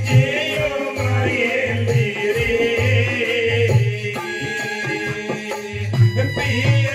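Live devotional bhajan: a man's singing voice with a one-string ektara accompaniment and a hand drum keeping a steady beat.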